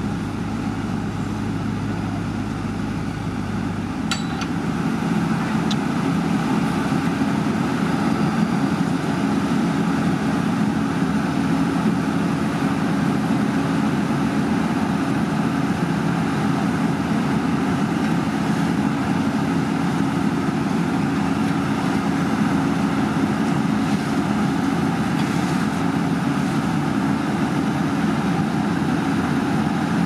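Diesel engine of heavy road-building machinery running steadily. About four seconds in, a lower hum drops out and the engine sound rises a little, with a few light clinks just after.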